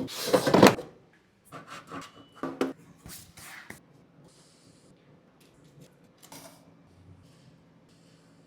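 Kitchen handling sounds: a loud rough scrape in the first second, then a run of short knocks and rustles that grows fainter, with a brief clatter about six seconds in.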